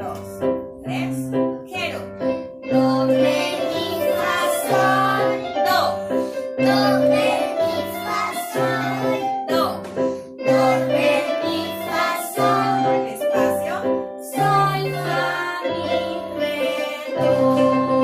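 Several electronic keyboards played together as a group piece, over a steady bass accompaniment with a note about once a second, while children's voices sing along.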